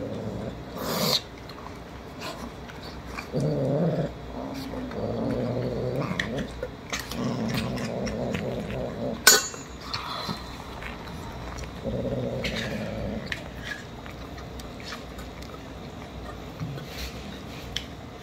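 Kittens eating wet cat food from stainless steel bowls, with several low growling cat sounds of about a second each. A sharp metallic clink comes about nine seconds in.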